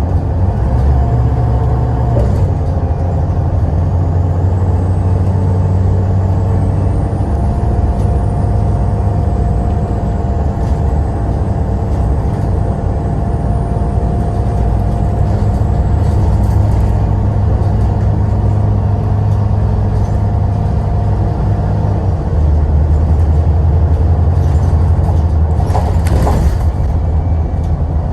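Bus engine running with a steady low drone, and a short hiss of air near the end.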